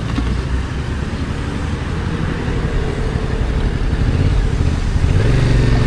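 A stock Yamaha XSR700's 689 cc parallel-twin engine running at low speed, its note picking up and rising about five seconds in.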